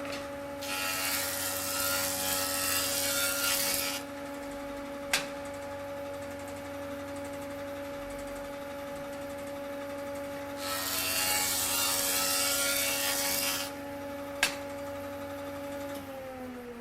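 A machine's motor hums steadily. Twice it lets out a hiss lasting about three seconds, and a sharp click follows about a second after each hiss. Near the end the motor begins to wind down, its pitch falling.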